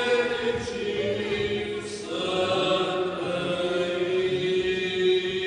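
A church choir singing a slow chant in long held notes, moving to new notes about two seconds in.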